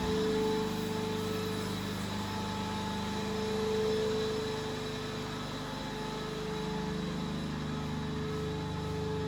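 Steady hum of a running motor or engine, holding an even pitch throughout.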